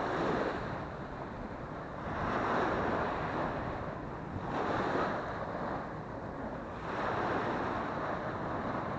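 Small sea waves breaking and washing up the sand, the surf swelling and fading about every two and a half seconds, with wind buffeting the action camera's microphone.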